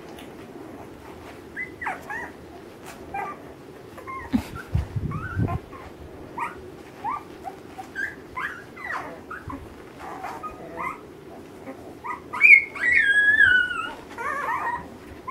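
Ten-day-old Alaskan malamute puppies squeaking and whimpering: many short, high, sliding cries, with a longer, louder falling cry about twelve seconds in. A few dull bumps sound around the fifth second.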